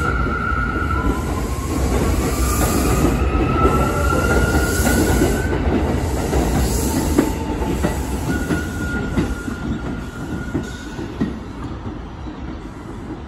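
R179 subway train pulling out and accelerating away, with a steady rumble, clattering wheels and a thin whine that glides up in pitch over the first few seconds. It fades as the train recedes down the track near the end.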